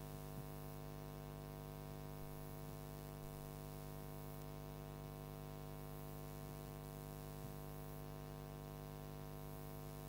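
Steady low electrical hum from the sound system, with no speech.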